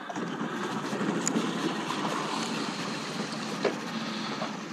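Steady rushing noise of water and wind around a boat under way, with two sharp clicks, one about a second in and a louder one near the end.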